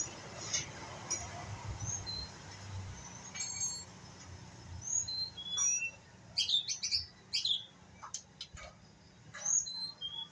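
White-rumped shama (murai batu) giving short, scattered chirps and rising whistled notes, a bird still learning its song. The notes cluster most thickly past the middle.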